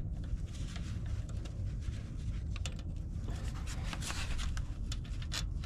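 Metal hand tools rubbing and scraping against the starter motor of a Ford 7.3 IDI diesel as it is worked loose for removal, with a few sharp clicks of metal on metal partway through.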